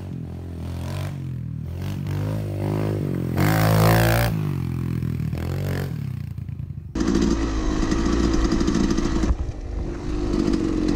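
A dirt bike revving up and down as it rides past, loudest about four seconds in. After a sudden cut at about seven seconds, another dirt bike's engine runs at riding speed, heard up close from a helmet camera with wind on the microphone.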